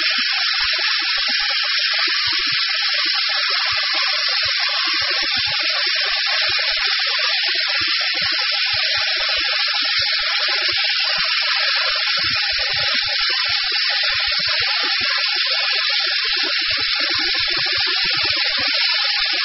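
OMAX waterjet cutting through plate with its Bevel-Jet head tilted to cut a 45-degree bevelled edge. The high-pressure jet makes a loud, steady, high hiss, with an irregular crackle underneath.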